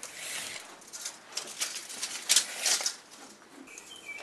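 Tape measure being pulled out and handled against a door frame: a short rattling slide, then a run of sharp clicks and rustles, loudest a little past the middle. A bird gives two brief chirps near the end.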